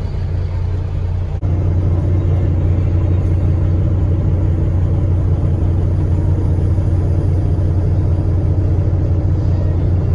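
Heavy vehicle engine running steadily with a deep low rumble. The sound drops out for an instant about one and a half seconds in and comes back slightly louder.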